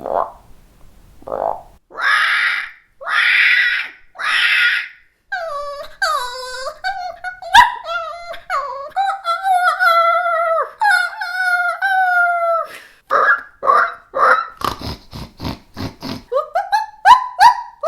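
A girl's voice imitating a string of animal sounds: three long breathy hisses, then several seconds of wavering, warbling pitched calls, then a quick run of short sounds ending in yelps that glide upward.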